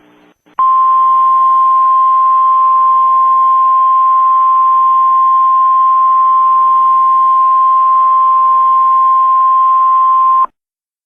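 NOAA Weather Radio warning alarm tone, the 1050 Hz single tone: one loud steady beep held for about ten seconds, starting about half a second in after a moment of faint radio hiss and cutting off abruptly near the end. It is the alert that signals a warning, here a coastal flood warning, is about to be read.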